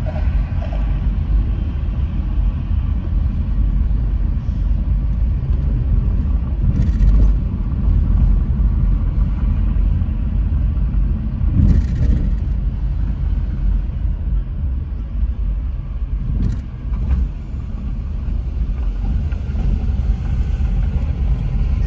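Car road noise heard from inside a moving car: a steady low rumble from the engine and tyres, with a few brief knocks.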